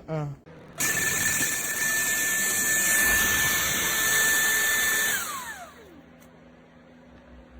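Vacuum cleaner motor switched on at full speed, running steadily with a high whine for about four seconds, then switched off, its whine falling in pitch as the motor spins down.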